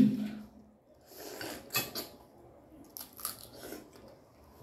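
Mouth and hand sounds of eating cooked crab: crab shell crunching and cracking, with chewing, in scattered short crackles.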